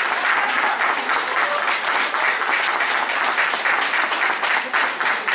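Audience applauding steadily, a dense continuous patter of many hands clapping.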